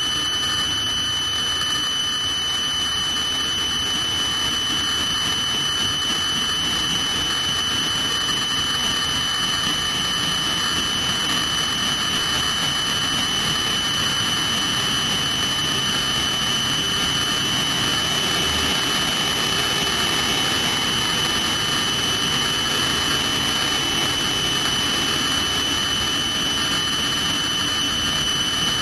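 Helicopter turbine engine running on the ground: a steady high-pitched whine over an even rush that holds constant throughout.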